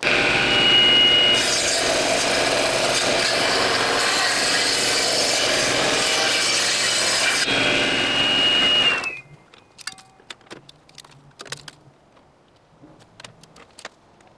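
Table saw blade ripping lengthwise through a log, loud and dense, with a high steady whine at the start and again just before the end. It cuts off suddenly about nine seconds in, followed by a few scattered light knocks.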